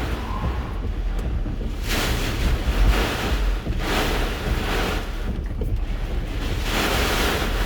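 Hurricane eyewall wind gusts buffeting a parked vehicle, heard from inside the cabin: a continuous rushing and rumbling that surges louder and eases several times.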